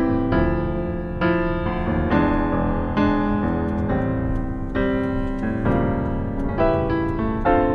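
Background piano music, with notes and chords struck about once a second.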